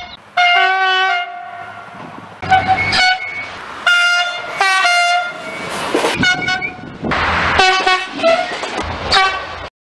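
Horns of SNCF TER regional trains sounding a run of short and longer blasts, one train after another. The rush of a passing train lies under the later blasts, and the sound cuts off abruptly near the end.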